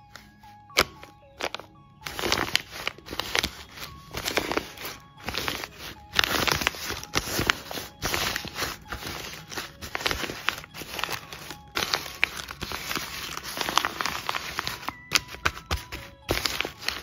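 Fingernails scratching and rubbing a terry-cloth towel: irregular crackly rustling strokes with sharp clicks, starting about two seconds in.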